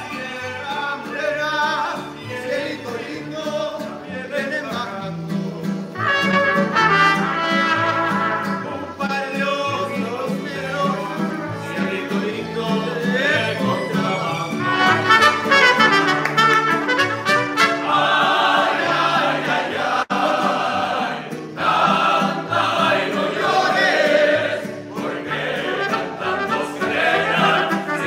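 Live mariachi band playing: trumpets, violins and guitars, with voices singing.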